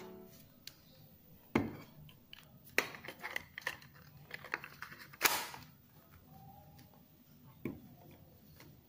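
Scattered plastic clicks and knocks as a small pull-cord mini food chopper's clear plastic bowl and white lid are handled and fitted together, the loudest clacks about one and a half and five seconds in.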